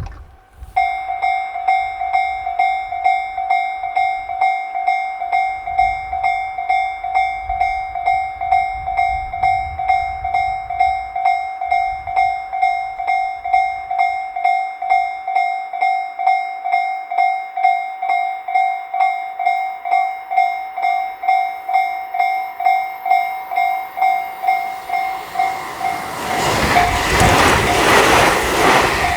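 Tobu Railway level-crossing warning bell, an electronic clang ringing about twice a second and starting about a second in. Near the end a passing train rises over it with a rumble and hiss of wheels on the rails.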